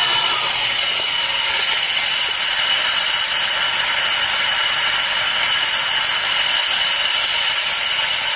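Air-fed cavity wax spray gun with a long wand spraying Dinitrol wax inside a car's box-section chassis leg: a steady, loud hiss of air and atomised wax.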